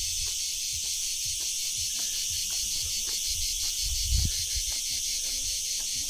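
A dense, steady, high-pitched chorus of insects with a fast, even pulse. Soft footsteps fall about twice a second, with a low thump about four seconds in.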